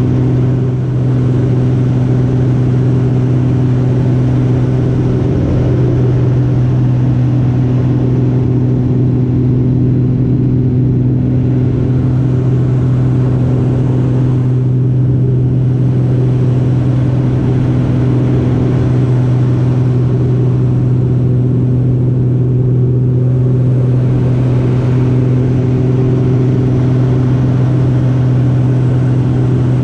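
Steen Skybolt biplane's piston engine and propeller running at a steady cruise setting, a constant drone heard from the open cockpit. A rush of air noise lies over the drone and thins out a few times.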